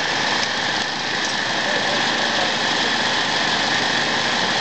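An engine running steadily, a constant, even drone that does not change.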